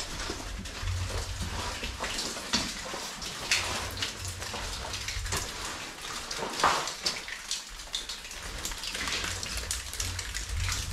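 Water in a mine tunnel: irregular drips and splashes, sharp and uneven, a fraction of a second to a second apart.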